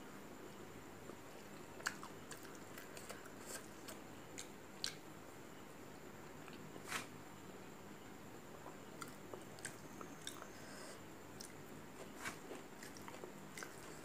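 Quiet chewing and mouth sounds of a person eating rice and curry by hand, with scattered short clicks and crunches at irregular intervals.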